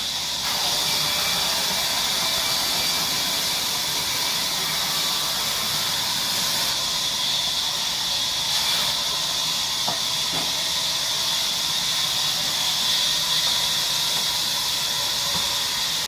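Large sawmill band saw running, a steady high hiss as the blade cuts through timber.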